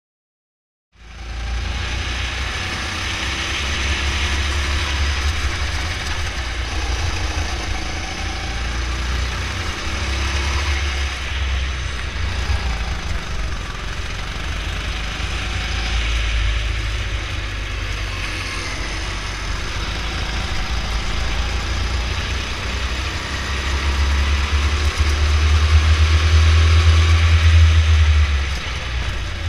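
Go-kart engine running under throttle as the kart laps the track, heard close up from the kart, with a strong low rumble and a note that rises and falls through the corners. The sound cuts in about a second in and is loudest for a few seconds near the end.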